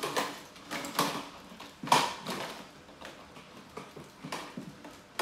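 Plastic ride-on swing car clattering on a tiled floor as it is pushed and climbed on: a string of irregular clacks and knocks, the loudest about two seconds in.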